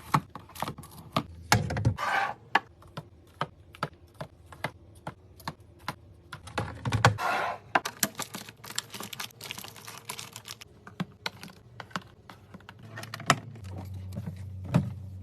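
Plastic containers and food items clicking, tapping and clacking as they are set into a refrigerator during restocking, with many sharp clicks and two brief rustling sounds, about two and seven seconds in. A low steady hum comes in near the end.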